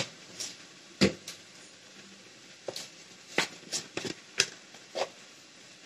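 A spoon clicking and tapping against bowls and spice containers as spice powders are spooned into a chicken marinade: about a dozen sharp, irregular knocks.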